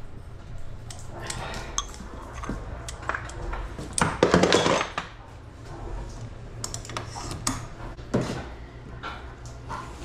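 Clinks, clatters and knocks of metal and plastic milking-system parts being handled and fitted, over a steady low machine hum, with a louder noisy burst about four seconds in.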